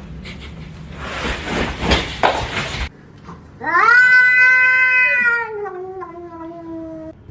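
A cat gives one long drawn-out yowl, about three and a half seconds, rising in pitch at the start and then sliding slowly down. Before it comes a stretch of noisy hiss and rustle that cuts off abruptly.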